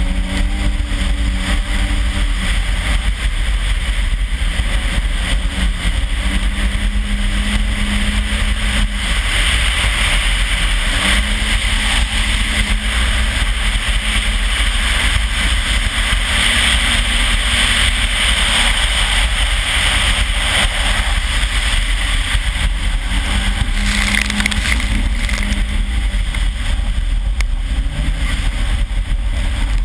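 Toyota RAV4's turbocharged 3S-GTE four-cylinder engine pulling at speed, its note holding steady and stepping in pitch several times with throttle and gear changes. Under it runs a heavy low rumble of wind on the microphone. A rushing hiss builds through the middle of the run.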